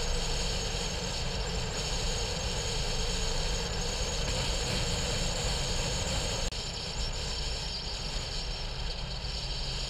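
Car driving at speed on a paved highway: steady road noise with engine hum, briefly cutting out about six and a half seconds in.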